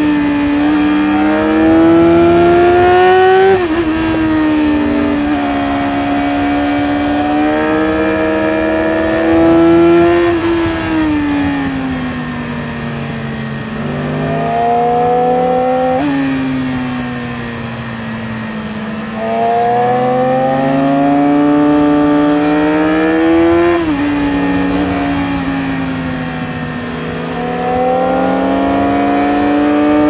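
Yamaha R6 RJ15's 600 cc inline-four engine heard from the rider's seat, revs climbing and falling over and over as the bike accelerates and rolls off, with sudden jumps in pitch at gear changes.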